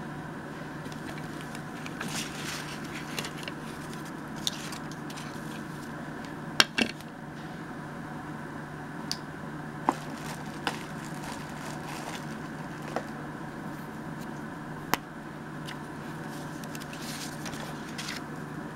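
Paper rustling and sliding as envelope and book-page sheets are handled on a cutting mat, with a few sharp taps and clicks, over a steady low hum.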